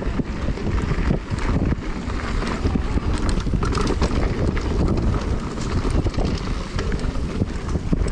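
Mountain bike tyres rolling fast over a dry dirt trail, with wind buffeting the microphone and frequent short rattles and knocks from the bike over bumps.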